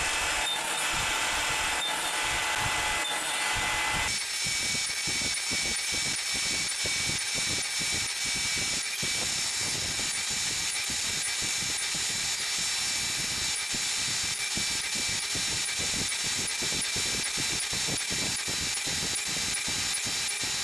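Table saw running and cutting the finger-joint slots in spruce boards. Dense cutting noise gives way about four seconds in to a steadier motor whine.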